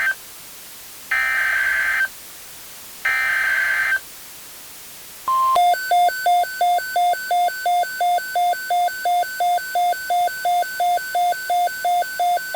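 Emergency Alert System SAME header: warbling digital data bursts of about a second each, the tail of one and then two more, with a second's gap between them. A brief beep follows, and then a rapidly pulsing electronic attention tone at about three and a half beeps a second, signalling an incoming emergency alert.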